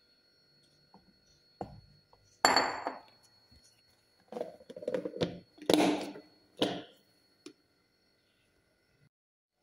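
A plastic food box and its clip-lock lid being handled and knocked together as the lid is set on: a string of separate knocks and clatters, the loudest about two and a half and six seconds in, stopping about seven seconds in.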